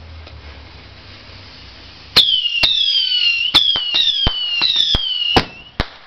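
Whistling fireworks going off in quick succession: about two seconds in, sharp pops begin, some nine in all, and most launches carry a shrill whistle that falls in pitch over about a second, several whistles overlapping.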